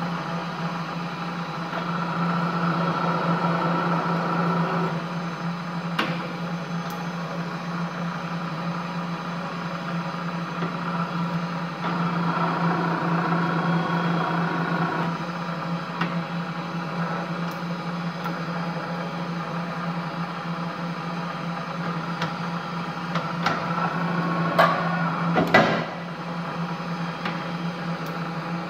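Super Condor Typ 20 22 pillar drill running with a steady hum from its motor and V-belt drive. Twice a higher cutting noise rises for a few seconds as the bit is fed into a workpiece held in the machine vice. Sharp clicks are scattered through, with a louder knock near the end.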